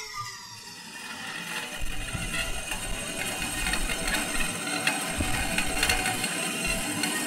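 Fixed-media electronic track made from pitch-shifted metal-shop recordings (aluminum cutting tools, rotating metal strips, metal dropped on the floor): a dense, machine-like rattling texture with scattered clicks, growing louder. Deep rumbles come in about two seconds in and again near six seconds.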